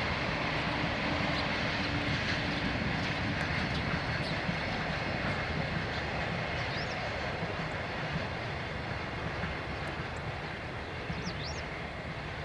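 Freight train of empty container wagons rolling past, a steady rumble and rush that slowly fades. A few short bird chirps come in from the middle on.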